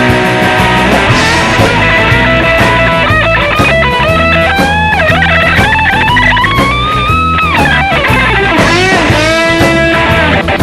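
Electric guitar through a BOSS DD-8 digital delay, playing notes that slide up and down in pitch, each trailed by delay repeats, over a steady low backing.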